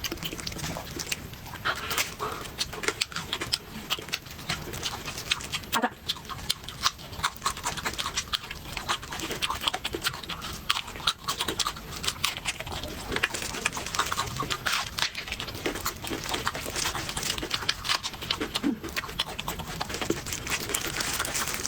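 Close-miked chewing and crunching of crispy fried food: a dense, continuous run of short crisp crunches and clicks.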